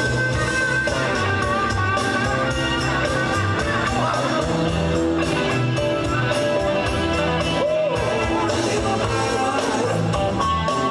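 Live rock band playing a blues-rock song on electric guitar, bass guitar and drum kit, with singing over a steady drumbeat.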